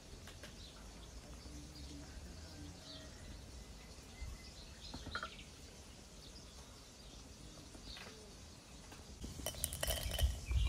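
Walnut pieces dropped by hand into a brass mortar, clicking against the metal and setting it ringing, a cluster of clinks that starts about nine seconds in and grows louder. Before that, quiet outdoor background with a few faint bird chirps.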